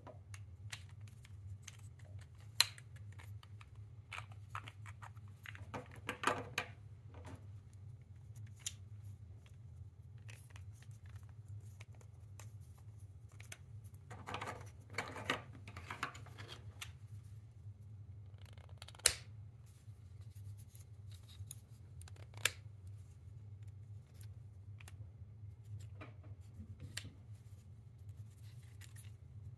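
3D-printed plastic infinity cube being folded and flexed by hand: scattered sharp plastic clicks and clacks as the pieces snap and swing on their hinges, with short stretches of scraping and rubbing, loudest about six seconds in and around the middle.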